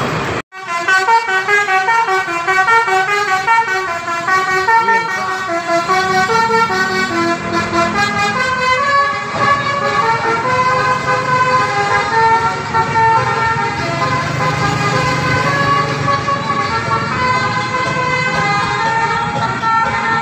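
Basuri telolet bus horn, a multi-trumpet musical air horn, playing a fast melody, its chords stepping from note to note several times a second, starting about half a second in and running on. A low engine rumble sits underneath.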